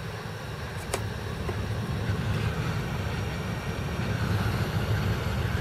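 Hot air rework station blowing a steady rush of air with a low hum onto a MOSFET on a motherboard, growing a little louder, while desoldering a MOSFET that has failed short. A single small click comes about a second in.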